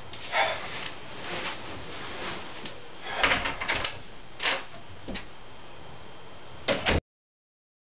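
A few scattered short thumps and rustles as a person gets off a bed and moves about the room, busiest about three seconds in. The sound cuts off abruptly near the end.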